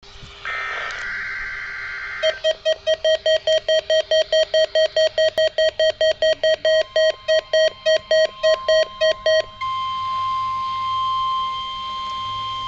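A brief burst of NOAA Weather Radio digital (SAME) header tones, then rapid electronic alert beeping at about four beeps a second for roughly seven seconds. The beeping gives way to the steady 1050 Hz weather radio warning alarm tone, sounded here for a weekly test.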